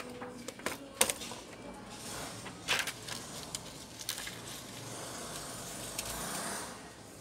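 Sharp plastic clicks and taps, loudest about a second in and again near three seconds, then a short stretch of rustling about five seconds in, as an ASUS C202S Chromebook keyboard and its thin plastic backing sheet are handled and laid onto the open laptop base.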